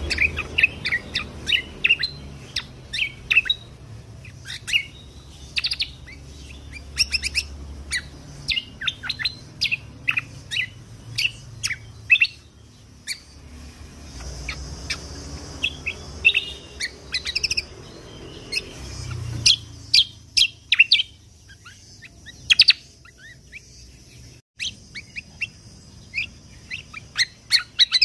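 Kecial kombok (cucak kombo) songbird singing in a long run of short, sharp high chirps and quick rising and falling notes with barely a pause. A low background rumble fades out a little past halfway.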